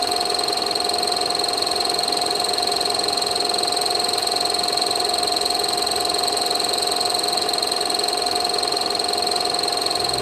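Film projector running: a steady mechanical whirr with constant high-pitched tones over it.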